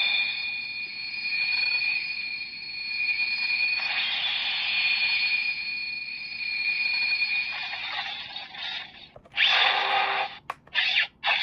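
Electronic sound effects from a TTK Kamen Rider Ryuki toy transformation belt's small built-in speaker, playing its monster-seal and contract sequence: a thin, tinny effect with steady high tones, then several short loud bursts near the end.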